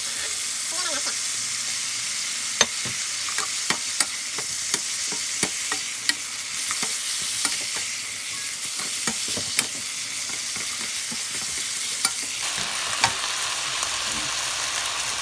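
Beef rib meat and sliced onion, green pepper and carrot sizzling in oil in a nonstick wok, stir-fried with wooden spoons that knock against the pan now and then in sharp clicks over the steady sizzle.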